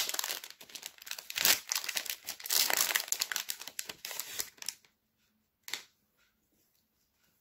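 Foil Pokémon booster pack wrapper crinkling and tearing as it is ripped open and the cards are slid out. The crackling stops after about four and a half seconds, with one more short crinkle near six seconds.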